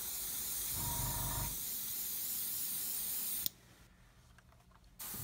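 Airbrush hissing steadily as it sprays thinned olive drab paint. The hiss cuts off suddenly about three and a half seconds in and starts again near the end.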